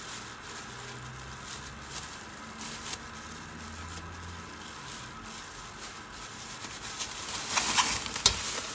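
Faint, steady sizzle of beef cooking in fish sauce in a pot. Near the end come a few sharp knocks and a rustle as a plastic bag is handled.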